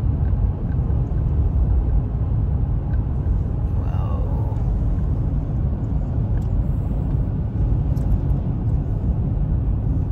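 Steady low rumble of tyre and engine noise inside a car's cabin while it drives along a highway.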